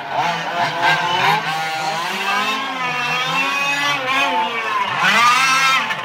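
Small two-stroke petrol engines of 1:5 scale RC race cars revving up and down as the cars accelerate and brake around the track. Several engines overlap, each rising and falling in pitch.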